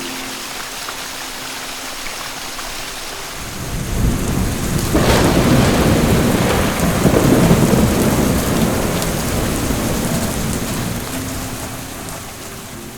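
Steady rain with a long roll of thunder that swells about four seconds in, peaks, then slowly fades away.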